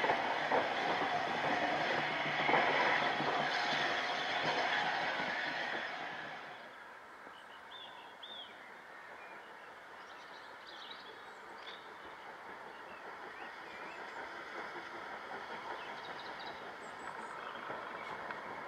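A steam train's carriages run past with a loud rush of wheels and steam until an abrupt drop about six seconds in. Then the sound of a Worsdell J72 0-6-0 tank engine drifting slowly into a station, much quieter, slowly growing louder as it nears, with a few faint high squeaks.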